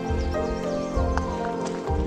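Background music with sustained chords and a low beat about once a second.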